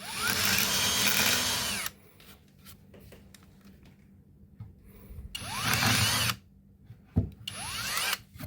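Power drill boring holes into a charred slice of log through a paper star chart. It runs in three bursts: the first about two seconds long, then two of about a second each, each starting with a rising whine as the motor spins up. A short knock comes between the second and third bursts.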